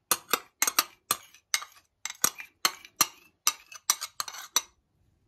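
A metal spoon clinking and scraping against a small glass bowl while melted butter is scraped out of it: a quick run of sharp clinks, about three or four a second, stopping near the end.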